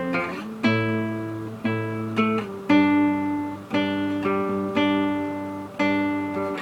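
Guitar playing a repeating chord pattern: about nine chords, each plucked or strummed and left to ring before the next.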